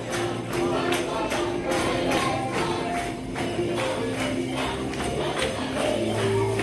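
Upbeat music with a steady beat and jingling tambourine-like percussion, playing without pause.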